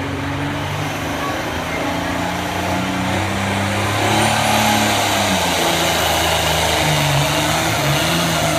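Diesel pulling tractor's engine running at the start line, then revving up about four seconds in and getting louder and rougher as it starts dragging the weight sled down the track under full load, pouring black smoke.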